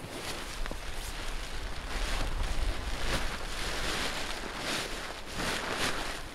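Nylon shell of a down sleeping bag rustling in repeated swishes as a person climbs into it and settles down, with wind rumbling on the microphone.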